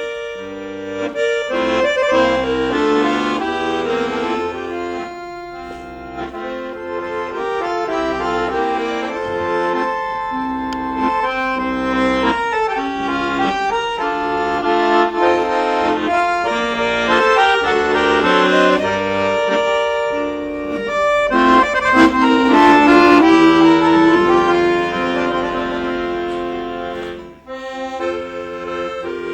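Accordion playing an instrumental passage of a tune, melody over chords, with a brief break near the end.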